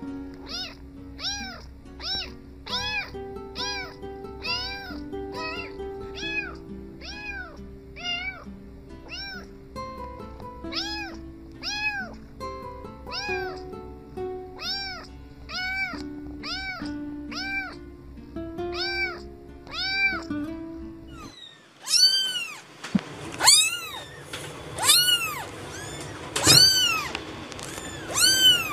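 A tabby kitten meowing over and over, in short rising-and-falling mews about two a second, over background music. About three-quarters of the way through there is a cut to a fluffy white-and-grey kitten giving about six louder, higher-pitched mews.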